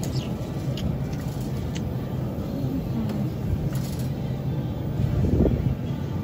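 Supermarket background noise: a steady low rumble, swelling briefly about five seconds in, with a few faint clicks.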